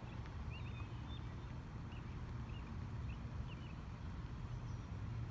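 Short, scattered bird chirps over a low, steady rumble.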